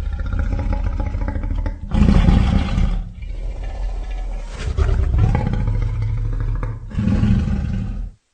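Custom-made Vastatosaurus rex dinosaur roar sound effect: a deep, continuous roar rising in several surges, the loudest about two seconds in. It cuts off abruptly near the end.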